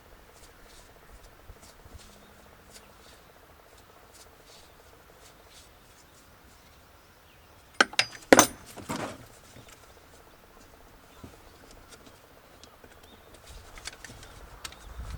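A quick run of sharp clicks and knocks, hard objects being handled, about halfway through, with faint scattered ticks before and after.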